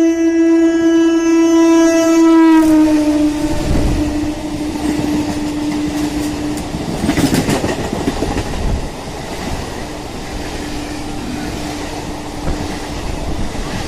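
Horn of a three-phase MEMU electric multiple-unit train honking one long steady note that drops slightly in pitch about two and a half seconds in as the train passes, then fades. The rumble and clickety-clack of the coaches on the rails follow, with a faint horn note again later.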